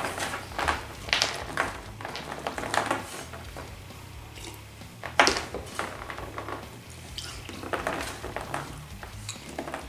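Eating sounds: small clicks of gummy fruit snacks being scooped and raked across a tabletop, mouthfuls swallowed whole, and a drink from a cup, with a sharp knock about five seconds in.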